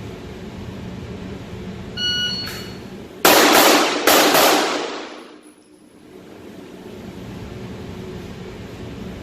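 Shot timer gives one short electronic start beep, then a little over a second later a Glock 17 9mm pistol fires two shots in quick succession, under a second apart, each report ringing out before fading.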